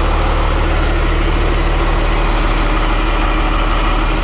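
Cummins X15 inline-six diesel of a 2022 Peterbilt 389 idling steadily.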